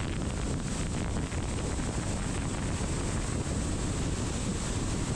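Steady rushing noise with a low rumble, even in level throughout.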